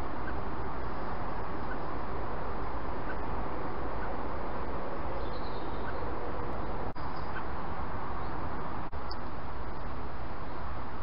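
Steady hiss and outdoor background noise from a trail camera's microphone, with a few faint bird chirps. The noise drops out briefly twice where the recording cuts between camera clips.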